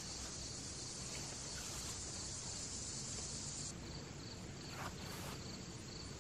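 Outdoor insect chorus: a steady, high, evenly pulsing trill, with a faint rustle about five seconds in.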